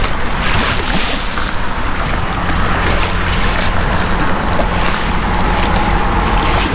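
Steady wind and shoreline water noise, with a low steady hum underneath.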